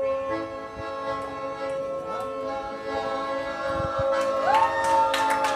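A gondolier's male voice singing a song, holding long sustained notes and sweeping up to a higher held note near the end as it builds toward the final climax.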